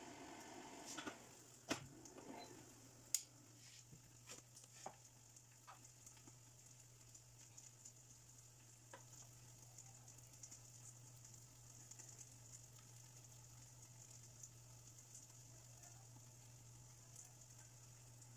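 A few sharp clicks and taps of a metal spoon against a frying pan as sticky rice is scooped out, in the first few seconds, then only a faint steady hiss and low hum.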